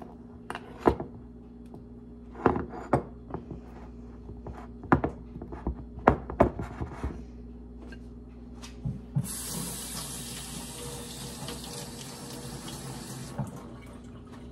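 A spoon knocking and clinking against a glass mixing bowl while stiff dumpling dough is stirred. About nine seconds in, a kitchen tap runs steadily for about four seconds and is shut off.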